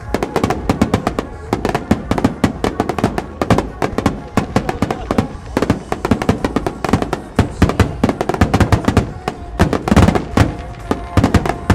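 Barrage of aerial firework shells bursting, sharp bangs several a second with a heavy cluster near the end, over music playing underneath.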